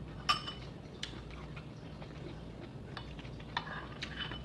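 Spoon and utensils clinking against a bowl and dishes during a meal, a few separate sharp clinks, the loudest about a third of a second in and a short cluster near the end.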